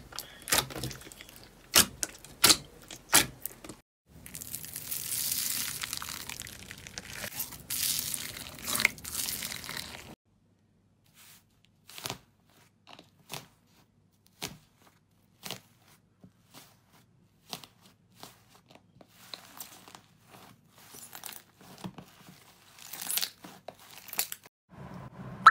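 Hands pressing and squishing slime: a run of sticky clicks and pops, with a stretch of denser crackling, crinkly noise in the middle, then sparser wet pops.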